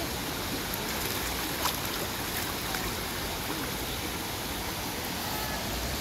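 Shallow, clear stream flowing over stones, a steady rush of water, with a faint splash about a second and a half in.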